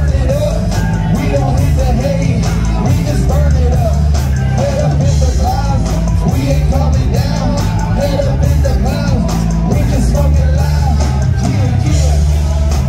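Live rock band playing loudly through a PA, with electric guitars, bass guitar and drums, and amplified vocals over the top.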